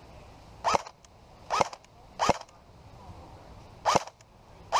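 JG AK-47 airsoft electric gun (AEG) firing five single shots at an irregular pace, each a sharp snap followed by a short falling whir.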